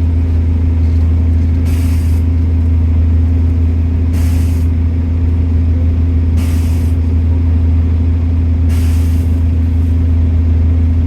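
A bus running with a steady low drone, and a short hiss of air that repeats about every two and a half seconds, five times.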